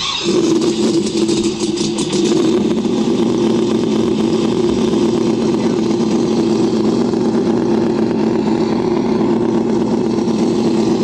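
Engine-sound simulator played loud through a large speaker (a 'boomer') fitted in an electric RC trophy truck, switched on and giving a steady, deep engine note. A rapid crackle rides on top during the first couple of seconds.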